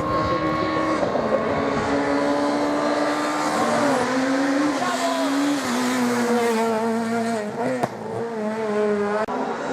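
Rally car engine under hard throttle. Its pitch holds, then steps down and climbs again several times as the driver shifts through the gears.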